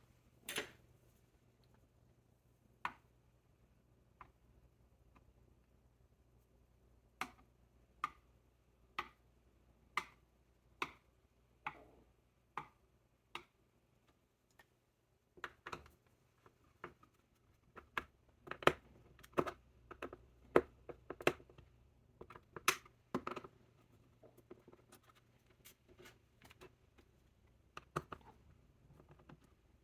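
Sharp, short clicks and snaps of tools and plastic on a laptop's back cover as it is being opened: single clicks about a second apart at first, then quicker, louder clusters from about halfway through.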